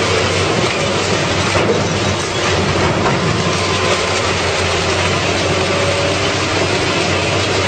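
Heavy car-scrapping machine running and destroying a car: a loud, steady mechanical din with a constant low hum underneath.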